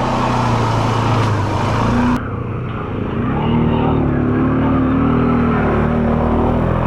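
ATV engine running as the quad wades through a deep water hole, with water splashing and sloshing loudly over it for the first two seconds. The splashing then cuts off suddenly, and the engine revs up and holds at higher revs.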